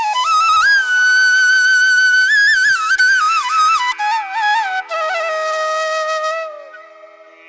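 Background music: a slow solo melody with gliding ornaments over a steady drone. The phrase falls and fades away about six and a half seconds in.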